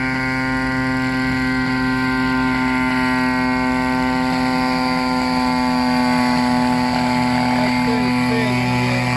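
Fuel-engined unmanned crop-spraying helicopter in flight: a steady engine and rotor drone that holds one pitch.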